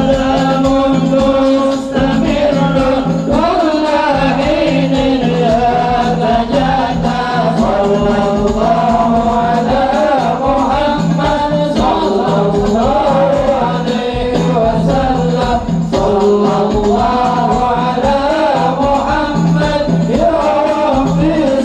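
Men singing a devotional Arabic sholawat, one amplified lead voice on a microphone with the group joining, over a steady beat of hand drums.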